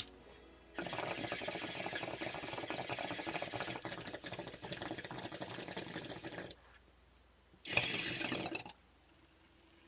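Bong water bubbling and hissing as a long hit of about six seconds is pulled, then a second, short pull of about a second.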